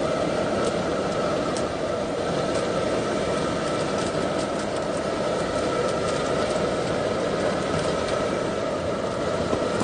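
A pan of spicy braised sea bream and tofu boiling hard over a stove: a steady rumbling bubble with a few faint clicks.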